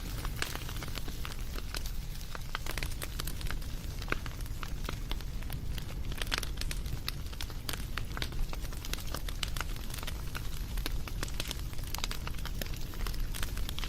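Wood fire crackling: irregular pops and snaps over a steady low rumble of burning.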